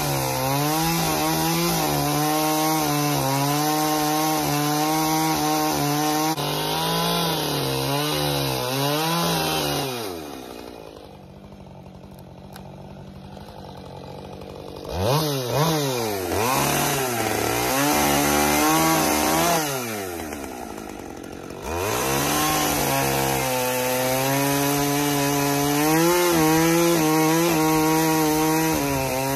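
Two-stroke gas chainsaw cutting into a log at high revs. The throttle is let off twice, dropping the saw to idle for about five seconds a third of the way in and for about two seconds past the middle, with the revs rising again each time it goes back into the cut.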